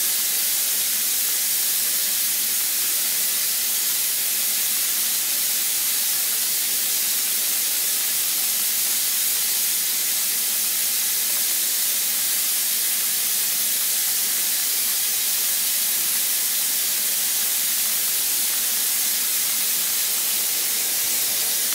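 Broth and cornstarch sauce simmering in a hot wok with a steady hiss as it starts to thicken.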